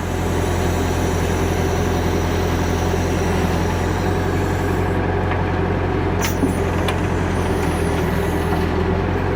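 Backhoe engine running steadily at raised throttle while the hoe digs, with a short sharp clink about six seconds in.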